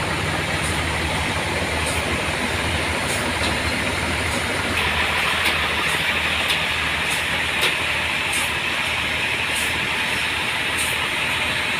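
Sawmill running with its engine-driven saw cutting a trembesi (rain tree) log into boards: a steady low hum under a broad mechanical hiss. A harsher, higher hiss joins about five seconds in.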